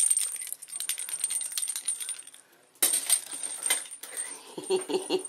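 Plastic bag crinkling and rustling as a ferret plays in it, a rapid run of crisp crackles. After a short break about two and a half seconds in, a fresh run of clicks and scrabbling starts suddenly.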